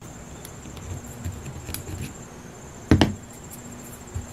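Rag rubbing and handling noise as a small lawnmower carburetor body is wiped by hand, with a few light clicks and one loud knock about three seconds in.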